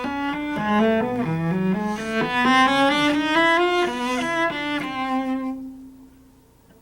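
Cello playing a quick, even scale run of bowed notes that climbs, turns back a little, and settles on a held note that dies away about five to six seconds in.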